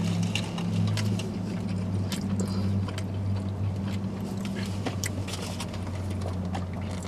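Steady low hum inside a running car, with scattered small clicks and rustles of eating and of handling food and a plastic water bottle.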